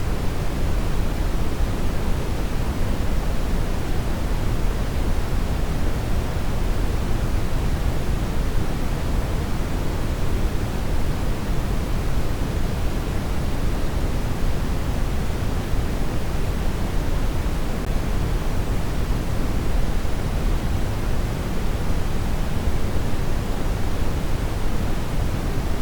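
Steady generated noise, an even, unchanging rush. It is heaviest in the bass and thins toward the treble.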